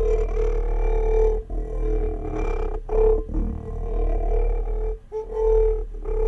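Wine glass drone: a sustained humming ring near one pitch with layered overtones and a low hum beneath, swelling and briefly breaking off a few times.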